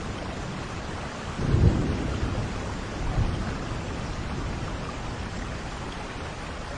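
Steady rain falling, with a low rumble of thunder swelling about a second and a half in and a smaller one soon after.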